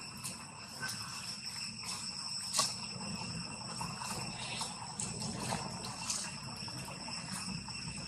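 Insects keep up a steady, shrill chorus on several high pitches at once, with scattered soft clicks and one sharper click a little before three seconds in.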